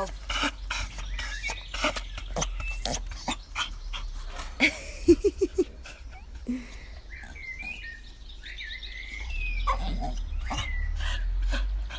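Pitbull whining in excitement, with a run of four short whimpers about five seconds in, amid scattered clicks and rustling. Faint high chirps come a little later, and a low rumble builds near the end.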